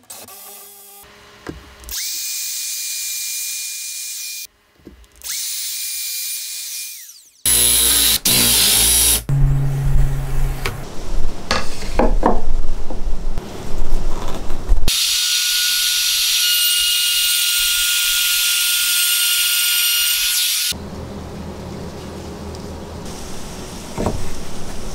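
Cordless power tools working wood. A motor whines steadily in two short runs of about two seconds each and winds down after the second. Then come irregular loud cutting bursts, a long steady run of about five seconds, and a lower, even hum near the end.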